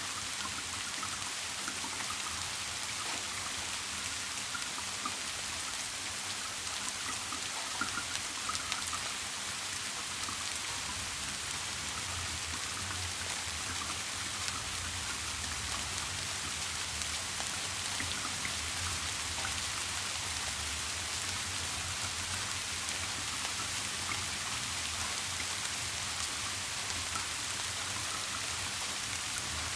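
Steady rain falling, an even hiss with scattered individual drops ticking, over a low steady hum.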